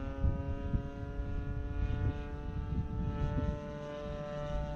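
Stinger 26cc two-stroke gas engine and propeller of a radio-controlled Beechcraft Staggerwing model biplane running in flight, a steady drone at nearly constant pitch.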